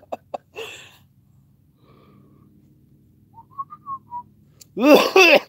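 A man whistles a brief run of about five short notes. Near the end comes a short, loud burst from his voice.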